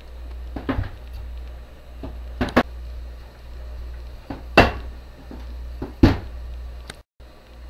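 Wooden rolling pin knocking against the worktop as bread dough is rolled out: about five sharp knocks, two of them close together, over a steady low hum.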